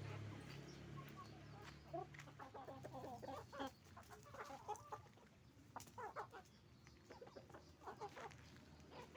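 Chickens clucking: many short, quick calls in bunches, from several birds at once. A low steady hum fades out in the first moment.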